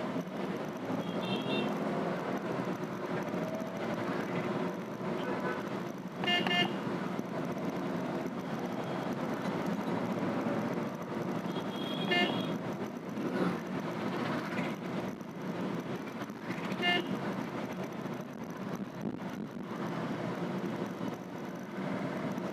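Cabin noise inside a Renault Triber AMT driving in city traffic: the steady hum of its three-cylinder petrol engine and road noise, with short car-horn toots from the traffic about six, twelve and seventeen seconds in.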